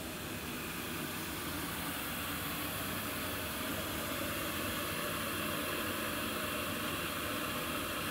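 Propane space heater, fed from a red gas bottle, burning with a steady hiss.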